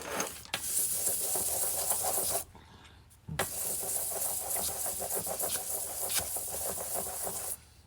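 Fine sandpaper rubbed by hand over the steel jaws of a vise, a dry hissing scrape in two spells, the second longer, with a brief pause between.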